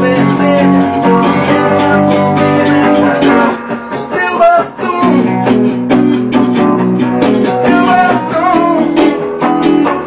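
Telecaster-style electric guitar played with strummed chords and single-note lines, with a brief drop in loudness about four seconds in.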